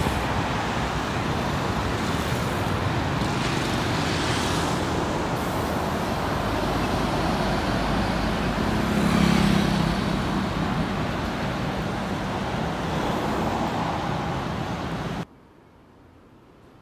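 Road traffic: motorbikes and cars passing with a steady hiss of tyres and engines, swelling as each vehicle goes by. The loudest swell comes about nine seconds in. Near the end the sound drops suddenly to a faint background.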